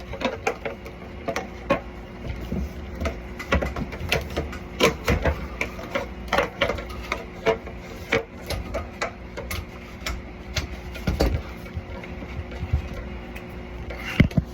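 Rapid, irregular clicks and knocks of tools and metal fittings being handled over a low rumble, with a faint steady hum underneath.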